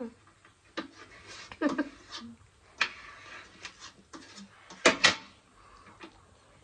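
Mukbang eating sounds: noodles slurped and chewed, with forks tapping a metal baking tray. There are brief giggles and two sharp clicks about five seconds in.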